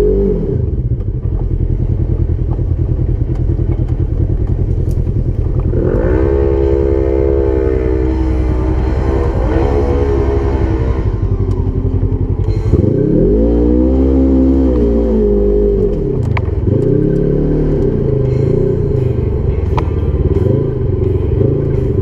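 Polaris 1000 XP side-by-side's twin-cylinder engine running and revving off-road. Its pitch climbs about six seconds in, swells up and back down in a long rev near the middle, then rises and falls a few more times with the throttle.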